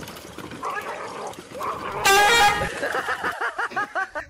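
A short, loud horn blast of about half a second, two seconds in. It is followed by a quick run of short squeaky sounds, about six a second.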